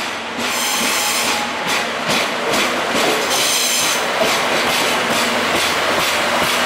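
A Class DE10 diesel-hydraulic locomotive runs into a station platform hauling a train of passenger coaches. Its engine hums steadily, the wheels click over the rail joints, and there are brief high squeals from the running gear twice.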